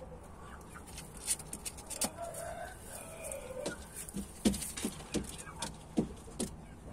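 Chickens calling faintly, with one drawn-out wavering call about two seconds in, over scattered sharp taps and rustles as a game rooster steps about on the straw of its pen.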